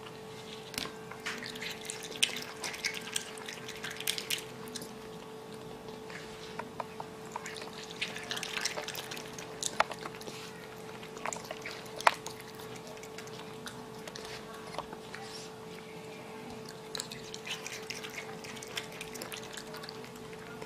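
Raccoon chewing grapes: wet smacking and crunching in clusters of quick small clicks, with a couple of sharper clicks in the middle, over a steady hum.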